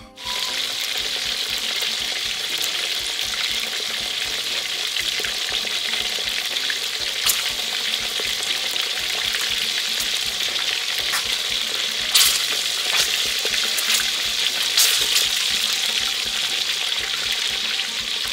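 Peeled boiled eggs frying in hot oil in a metal wok: a steady sizzle, with a few sharp pops and spits of oil.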